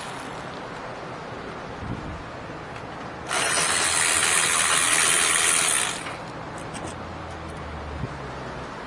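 Cordless Milwaukee electric ratchet spinning a swivel socket, running for about three seconds from about three seconds in as it backs out a brake caliper bracket bolt.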